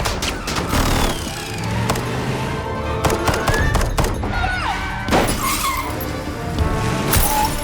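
Action-film car-chase soundtrack: orchestral score music over car engines, with repeated sharp impacts and crashes.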